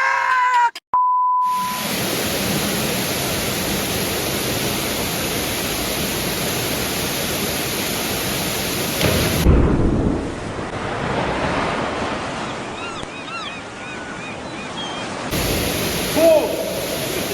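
Steady rushing roar of a waterfall, with brief changes in the sound partway through. A short electronic beep comes about a second in, and a few faint high chirps are heard past the middle.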